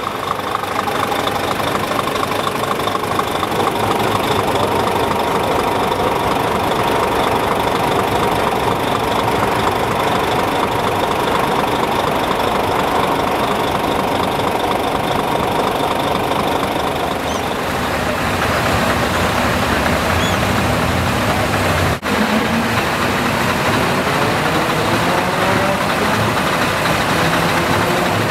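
Truck diesel engines idling steadily. The sound changes about eighteen seconds in and drops out for an instant about twenty-two seconds in, after which an engine note rises in pitch for a few seconds.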